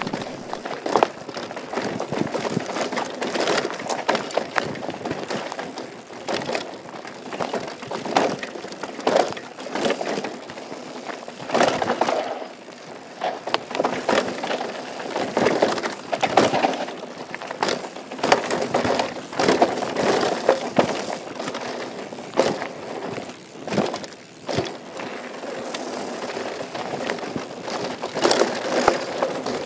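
Mountain bike descending a rough downhill trail: tyres rolling and crunching over dirt and rock, with frequent irregular rattles and knocks from the bike over the bumps.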